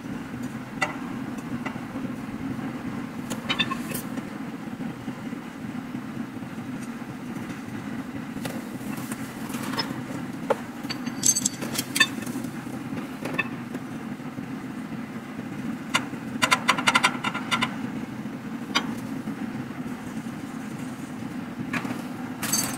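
Metal tube parts and brackets of an IKEA flat-pack frame clicking and clinking as they are handled and screwed together, with scattered knocks and a quick run of clicks a little past the midpoint. A steady low hum runs underneath.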